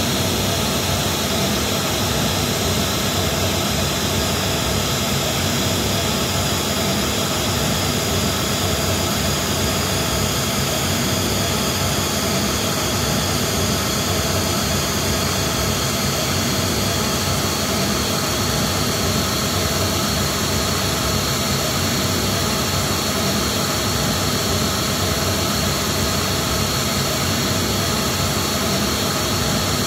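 Pink noise test signal played steadily through a JBL SRX815 / SRX828SP PA system for a Smaart acoustic measurement: an even, unbroken hiss across all pitches at a constant level.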